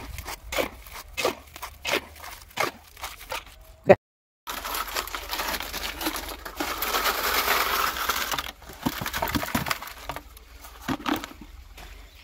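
A hoe scraping and chopping through wet concrete mix of sand, cement and stone chips, about two strokes a second, ending in one sharp knock. After a short break comes a steady gritty rush of concrete mix being tipped into a steel ring mould, then scattered scrapes and knocks.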